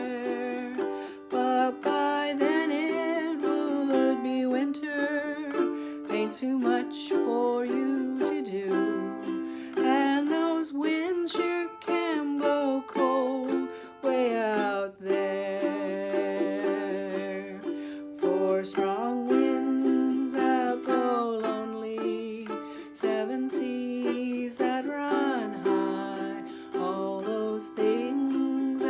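Ukulele strummed steadily as accompaniment, with a singing voice carrying the melody over it.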